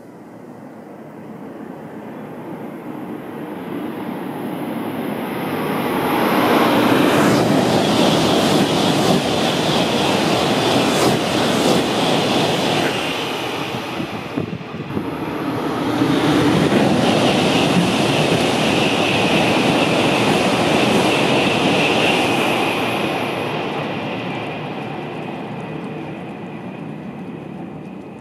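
Shinkansen bullet trains passing at high speed: a rushing noise of wheels and air that builds over several seconds, stays loud through two peaks with a short dip between them, then slowly fades away.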